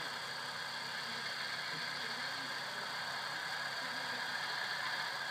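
Soundtraxx Tsunami sound decoder's recorded diesel prime mover idling steadily through the model locomotive's small speaker, held at idle because the dynamic brake is applied.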